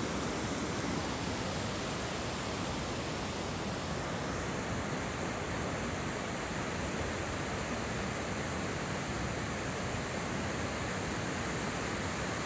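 Ocean surf breaking along a sandy beach: a steady, even rush of waves with no single breaker standing out.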